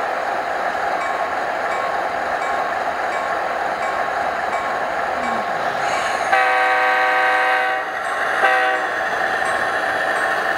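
Sound decoder in an HO-scale Athearn SD90MAC-H model playing a steady diesel locomotive engine sound through its small speaker, thin with little bass. About six seconds in, it sounds a horn blast of about a second and a half, followed by a short toot.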